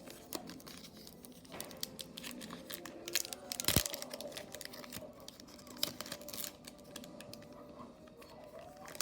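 Foil wrapper of a Pokémon card booster pack being torn open and crinkled in the hands, a run of short crackles and rustles with one louder crackle about four seconds in.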